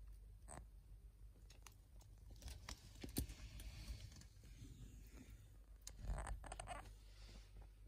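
Faint handling noise from a phone being moved while filming. There are scattered light clicks and a brief rustle about two and a half seconds in, and another around six seconds, over a low steady hum.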